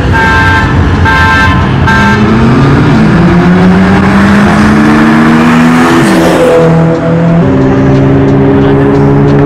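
A car horn toots three times about a second apart, then a loud car engine accelerates, its pitch climbing, dipping briefly and stepping up again before holding a steady high note.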